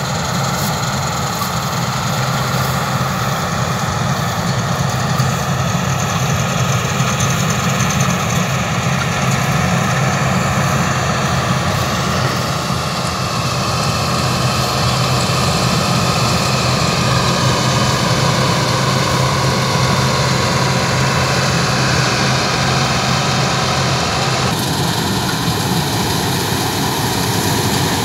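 New Holland 8070 combine harvester running steadily while it harvests: a loud, even drone of its diesel engine and threshing machinery. The higher part of the sound shifts abruptly near the end.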